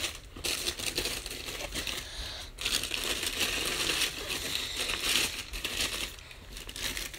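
White tissue paper crinkling and rustling as hands fold it back inside a cardboard shoebox.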